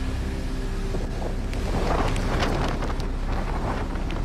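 Strong, gusty storm wind blowing through palm trees and buffeting the microphone, with a gust swelling about two seconds in.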